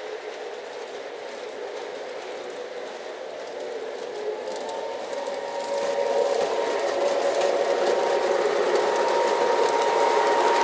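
Lionel O-gauge Rock Island Rocket train with two E6 diesel locomotives running on FasTrack, a steady mechanical hum with a whirring whine that grows louder from about halfway as the train comes close and passes.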